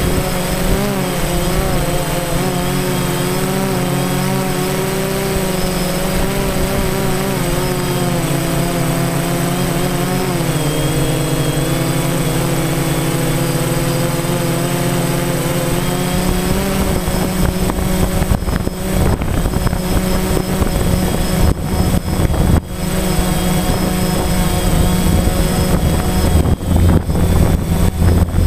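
DJI Phantom quadcopter's motors and propellers buzzing steadily, heard from the camera on board, their pitch wavering as the drone adjusts its flight. From about halfway through, a rougher low rumble of wind on the microphone mixes in.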